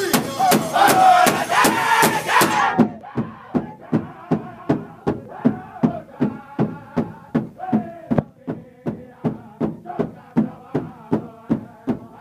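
A powwow drum group striking a large hide drum in unison at a steady beat, about two and a half strokes a second, while the men sing in chorus. The loud, full singing drops away sharply about three seconds in, and the drumbeat carries on under softer singing.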